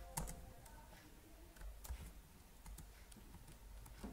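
A few faint, scattered key presses on a computer keyboard, as a search term is typed and Enter is pressed to step through the matches.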